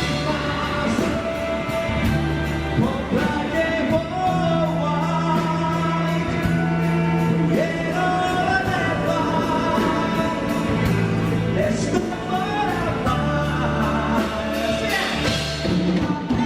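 Band music with singing: bass, keyboard and drums playing a steady beat under a sung melody.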